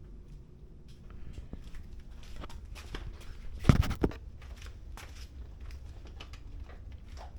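Hands working on motorcycle tail parts and wiring: faint rustling and small clicks, with two quick knocks close together about three and a half seconds in.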